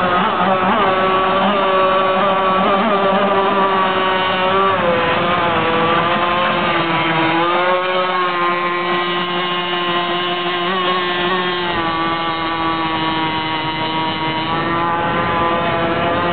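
Cracker Box speedboat's engine running under way at high revs. Its pitch wavers up and down with the throttle, dipping briefly a few seconds in and again near the middle.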